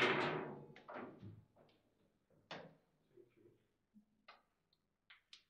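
Hard knocks from a table football table: one loud sharp knock that rings out briefly, then a handful of lighter knocks and clicks scattered over the next few seconds, growing fainter and sparser.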